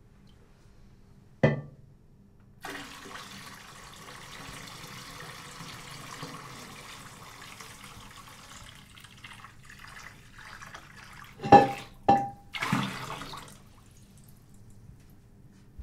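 Water poured out of a steel cooking pot, splashing steadily for about six seconds and trailing off. A single knock comes before the pour, and near the end there are two sharp metallic clanks of the pot, ringing briefly, followed by a short rush of noise.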